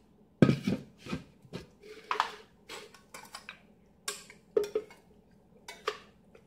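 Kitchenware being handled: a plastic blender jar lifted off its base and set down, and an enamel saucepan picked up and tipped over it, giving a run of irregular knocks and clinks, the loudest about half a second in.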